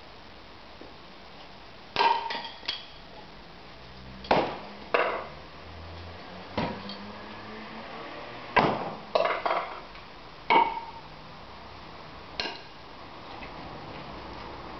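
Thrown steel shuriken striking the target one after another: about eight sharp metallic impacts a second or two apart, several ringing briefly, some followed closely by a second, smaller clink.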